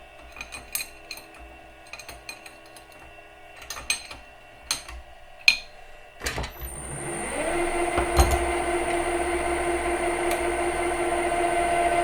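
Light metallic clicks and taps of tools being handled, then about six seconds in a metal lathe's motor starts, rising in pitch as it spins up and settling into a steady running hum.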